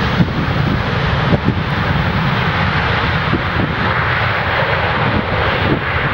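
Airbus A320-family airliner's jet engines during the landing rollout, a steady rushing noise, with wind buffeting the microphone underneath.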